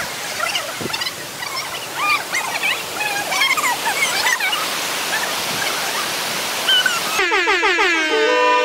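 Rushing water of a small waterfall pouring over a stone weir, a steady hiss with scattered short high-pitched calls over it. About seven seconds in, it cuts to music with gliding tones.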